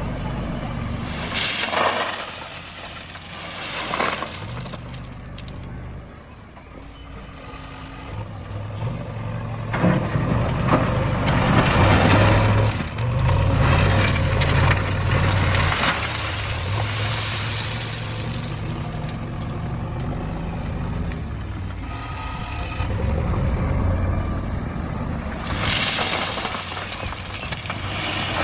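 Heavy diesel machinery, a backhoe loader and tractors, running and working under load, with a few harsh bursts of noise, typical of stone being dumped or scraped, over the engine hum.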